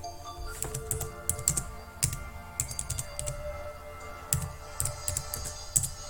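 Computer keyboard typing: a run of irregular keystrokes, some louder than others, over background music.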